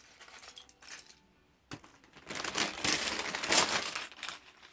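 Plastic bag crinkling and rustling for about two seconds as Lego plates are tipped into it, preceded by a single click.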